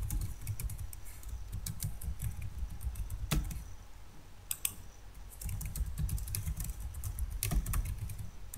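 Typing on a computer keyboard: irregular runs of key clicks, with a short lull about four seconds in.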